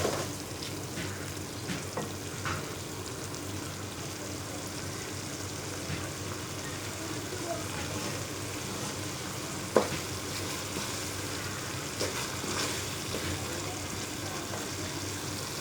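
Mash dal bubbling and sizzling in a pot as its water cooks off, with a few sharp knocks of a spoon against the pot, the loudest about ten seconds in.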